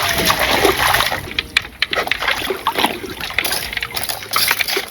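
Water splashing and sloshing irregularly in a vinyl paddling pool, as people move about in it.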